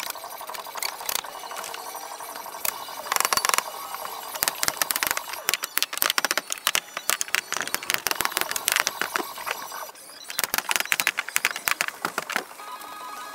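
Rapid, irregular clicking and knocking from hammer work on a wooden shed's framing, with a short lull about ten seconds in.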